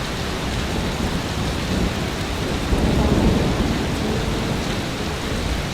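Heavy rain falling steadily, with a low rumble of thunder swelling about two and a half seconds in and fading by about four seconds.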